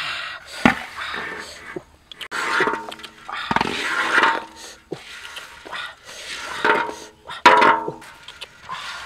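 Metal spatula scraping fried crickets across a large metal wok and onto a woven bamboo tray: a series of rough scrapes with clinks, several of them setting the wok ringing briefly.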